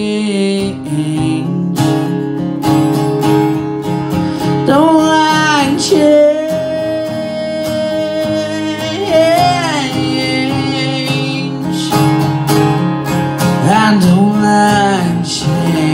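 Instrumental outro of an acoustic country song: an acoustic guitar strumming chords, with a melody line that slides between notes laid over it three times.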